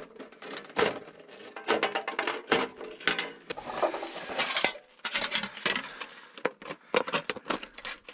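Sheet-metal storm collar clinking and scraping against stainless-steel chimney pipe as it is handled and slid down over the pipe, with many sharp metallic clicks and clanks and a stretch of scraping.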